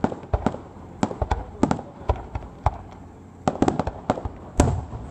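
Aerial firework shells bursting in a rapid, irregular string of sharp bangs, with a brief lull a little past halfway and then a dense run of bangs near the end.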